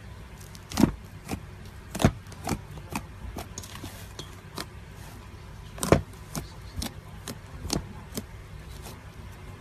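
Fluffy slime squished and stretched by hand in a metal bowl, giving irregular sharp pops and clicks as air pockets in it burst, three of them much louder than the rest, over a steady low hum.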